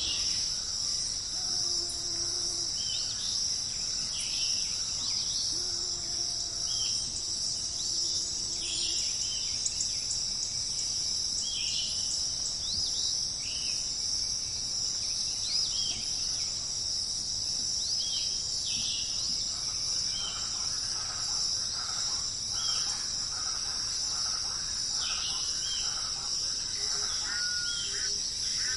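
Nature ambience: a steady, high-pitched insect chorus with many short bird chirps scattered over it. A few low held calls come in the first half, and more bird calls join from about two-thirds of the way in.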